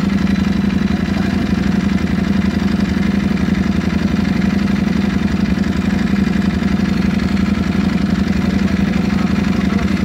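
Ducati Panigale V4 Speciale's V4 engine idling steadily in neutral through an Akrapovic full titanium exhaust, with an even, unchanging note and no revs.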